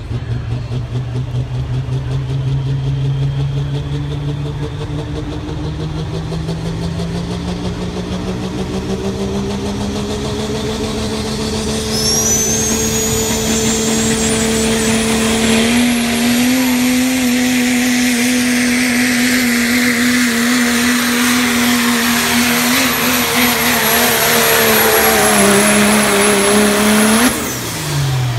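Diesel Dodge Ram pickup pulling a sled under full throttle, growing louder as it comes down the track. The engine note climbs slowly and then holds steady, and a high turbo whistle rises in pitch partway through. The engine drops off suddenly near the end as the throttle is released at the end of the pull.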